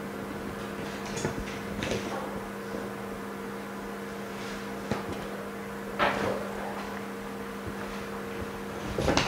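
Steady electrical hum of a Jiutu mini OCA laminating machine running its laminating cycle, with a few faint clicks and one louder knock about six seconds in.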